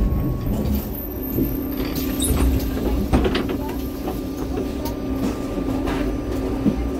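MAN Lion's City NL253 Hybrid city bus running, a steady hum with scattered rattles and clicks.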